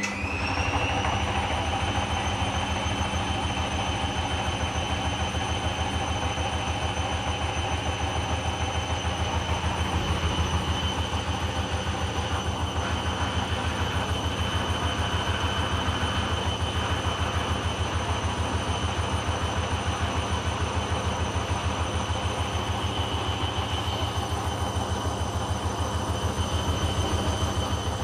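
Hoover Dynamic washing machine on its wool/silk final spin: the motor whine rises over the first second, then holds steady. Under it runs a fast, even low thumping from the drum turning an unbalanced load of a pillow.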